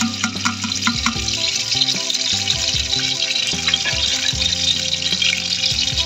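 Chopped onions tipped into hot oil in a pot and sizzling steadily as they fry, with background music playing.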